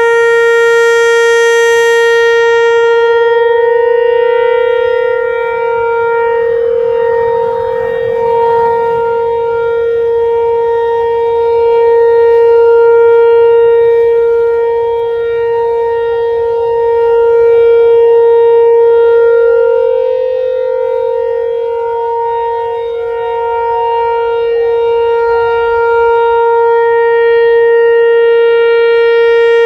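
Whelen Vortex tornado siren sounding a steady, unbroken tone during a siren test. Its pitch holds level while its loudness swells and fades slowly every several seconds.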